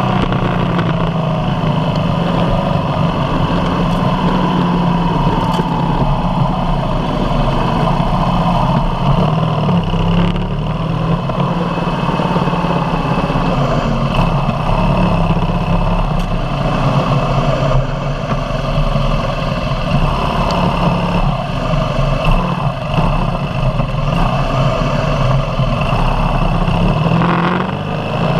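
BMW HP2 Sport's air/oil-cooled boxer twin running at low, fairly steady revs as the bike rolls slowly off the track, through the pit lane and into the paddock, heard close up from the bike-mounted camera.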